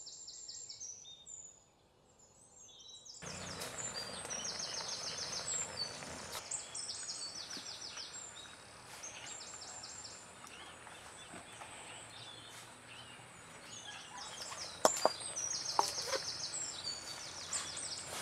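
Outdoor ambience with short, rapid, high-pitched chirping trills that repeat every second or two. A few seconds in, a steady hiss of background noise comes in, and two sharp knocks follow near the end.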